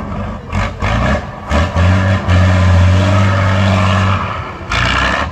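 Trial truck's diesel engine revving under load: a few short blips, then held at high revs for about two seconds as it climbs, putting out black smoke, before easing off. A short loud burst follows near the end.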